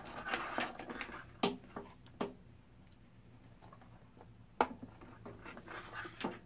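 Hands handling a small capacitor and test leads at a bench capacitance meter: light rustling and scattered small clicks as the wire leads are pushed into the meter's test socket. The loudest click comes about four and a half seconds in.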